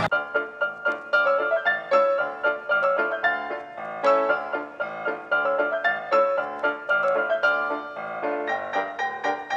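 Background piano music: a light tune of quick, evenly paced notes.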